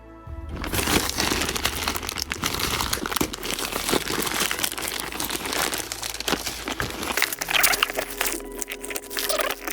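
Packaging being unwrapped and torn open by hand: dense crinkling and rustling full of sharp crackles, starting a moment in.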